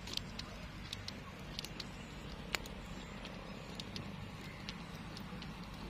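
Charcoal fire crackling under skewered fish tikka, with sharp irregular pops over a steady low rumble.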